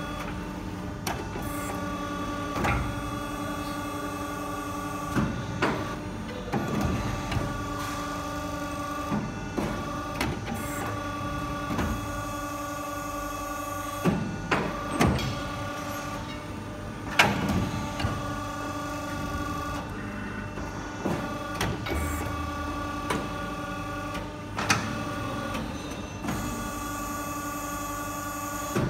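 DW38CNC CNC hydraulic pipe bender running an automatic bending cycle. A steady hydraulic whine stops and restarts every few seconds as the machine moves between feed, rotate and bend steps, with clunks from the clamping and bending dies and the feed carriage at the changeovers.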